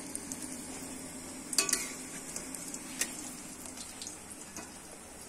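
Pangsit (filled wontons) frying in oil in a wok, a steady sizzle. A metal utensil clanks against the wok with a short ring about one and a half seconds in, and taps it again more lightly about three seconds in.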